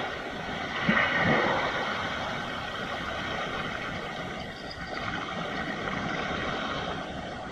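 Sea waves breaking on a rocky shore: a louder surge about a second in, then a steady rushing wash of surf.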